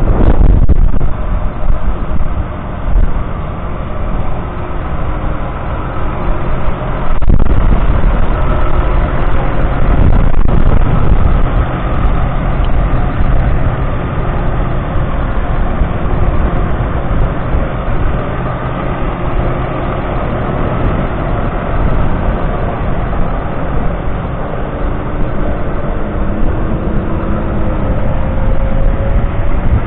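Six-cylinder diesel engine of a Case Puma 140 tractor running steadily, its pitch rising slightly near the end.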